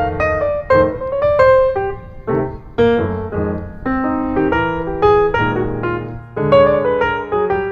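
Background piano music: a melody of separate struck notes over sustained chords.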